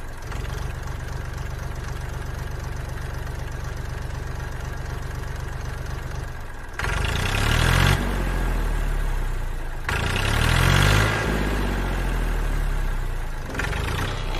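Engine sound of a motor vehicle, laid over the toy footage, running steadily with a low pulsing rumble, then getting louder about two-thirds of the way in and swelling up and down in pitch twice, like revving.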